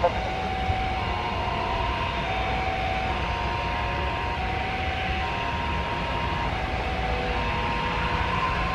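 Boeing 737 jet engines running: a steady rumble and hiss with faint held tones that step between a few pitches about every second.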